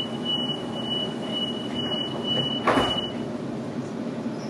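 Inside a Sydney Trains Waratah carriage: the door-closing warning beeps, a high tone repeating quickly, stop about three seconds in, just after the sliding doors shut with a thud. The train's equipment hums steadily underneath.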